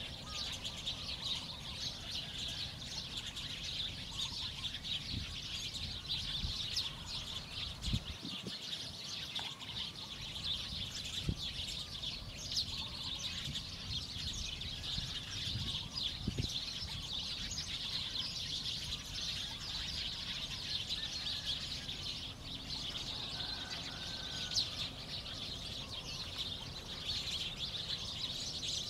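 Dense, steady chorus of high chirping birds, with a few dull knocks from the bamboo roof work.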